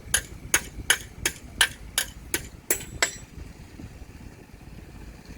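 A run of sharp, evenly spaced clacks, about three a second, over a low engine rumble; the clacks stop about three seconds in.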